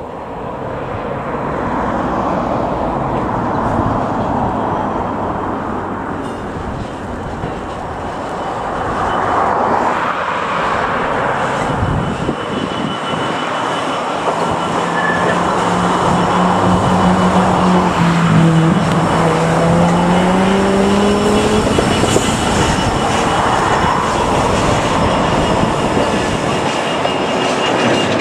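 Freightliner Class 66 diesel-electric locomotive passing at speed under power, its two-stroke V12 diesel engine running, with the wheels of a train of empty open box wagons rolling behind. Midway a pitched engine note rises slowly over several seconds.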